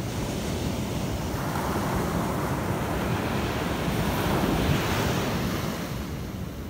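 Sea surf washing on a sandy beach, with wind buffeting the microphone; the rush of water swells to its loudest about four to five seconds in, then eases.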